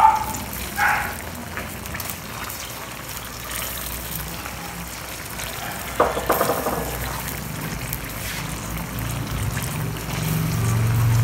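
Squid adobo sauce simmering in a metal pan over a gas burner, a steady bubbling sizzle. A sharp knock about six seconds in, when bay leaves go into the pan, and a low hum swells near the end.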